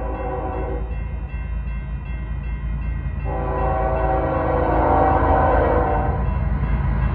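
Union Pacific freight locomotive sounding its horn on approach: one blast cuts off about a second in, then a long blast runs from about three seconds to shortly before the end. Under it is the steady low rumble of the approaching diesel train, slowly getting louder.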